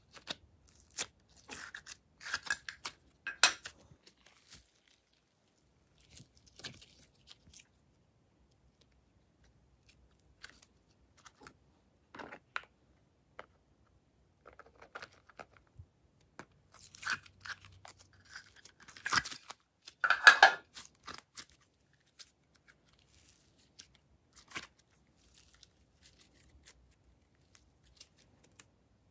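Glossy slime being pushed and peeled out of small plastic containers: sticky crackling and popping clicks, in two dense bursts, one a second or so in and another a little past the middle, with sparse quieter clicks between.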